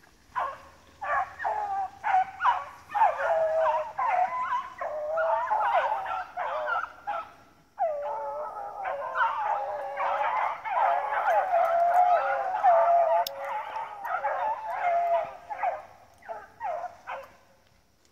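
A pack of beagles baying in full cry as they run a rabbit's scent trail: many overlapping howling calls, with one brief break a little before halfway.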